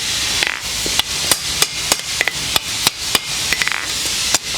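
Blacksmith's hand hammer striking a rolled steel hinge barrel on the anvil in a steady rhythm of about three blows a second, tightening the barrel to take the kinks out. A gas torch hisses steadily underneath.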